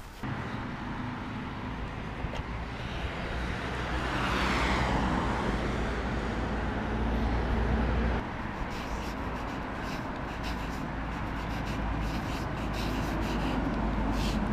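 Street traffic noise: a car passes close by about four seconds in, its sound swelling and falling away, over a steady low rumble. Short clicks and taps follow in the second half.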